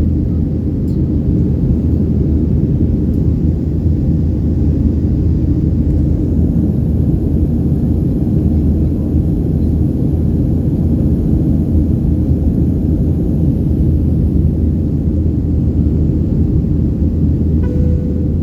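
Steady low rumble of an airliner in flight, heard inside the passenger cabin: engine and airflow noise at an even level, with a faint click and a brief tone near the end.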